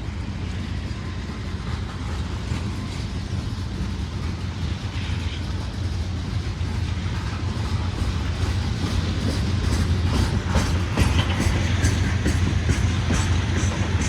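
Freight cars of a CSX freight train rolling past with a steady low rumble. From about the middle on, the wheels click over the rails more often and more sharply.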